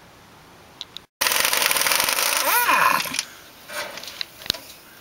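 A power tool runs loudly for about two seconds and stops sharply, with a short rise and fall in pitch partway through. A few short metallic clicks and knocks follow, typical of loosening suspension hardware.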